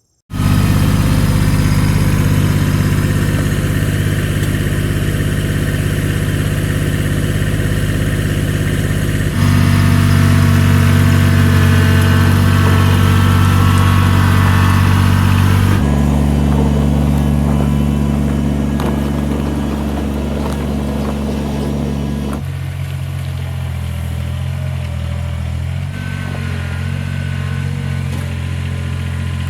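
Engine of a log-moving machine running steadily. Its pitch and loudness shift in steps: up and louder about a third of the way in, then lower and quieter over the last third.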